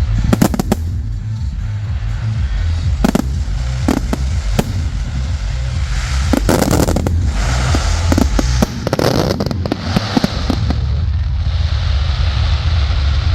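Aerial fireworks bursting, a series of sharp bangs coming in clusters, turning to a long hissing crackle in the last few seconds, over music with a heavy steady bass.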